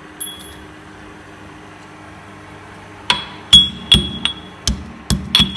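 Fresh ginger being pounded with a pestle in a mortar. A light clink comes near the start; about three seconds in, a run of sharp strikes begins, two to three a second, each ringing briefly.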